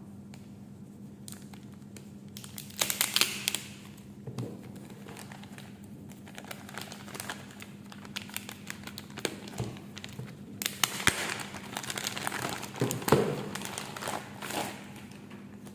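Packaging crinkling and rustling as a box is unpacked, in two spells, with a few soft knocks, over a steady low hum.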